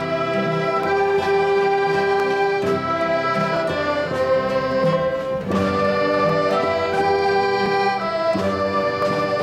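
A large ensemble of recorders with classical guitars playing a tune together in held notes, with a brief break between phrases about five and a half seconds in.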